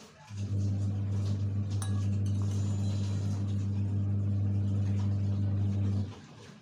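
A steady low electrical hum, like an appliance's motor, switches on about half a second in and cuts off suddenly about six seconds in. A spoon clinks once faintly against a dish.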